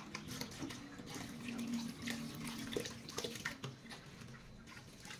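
Kitchen tap running into a steel bowl of long green beans in a stainless-steel sink, with small splashes and clinks as hands swish and rinse the beans.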